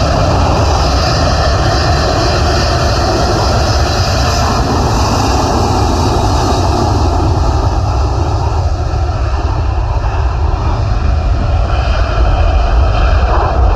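Airbus A330 twin jet engines at high power as the airliner starts its takeoff roll, a loud steady rumble that grows deeper and heavier near the end.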